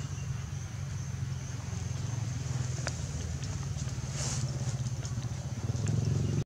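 Steady low drone of an engine running nearby, with a thin high-pitched whine held over it and a few faint clicks.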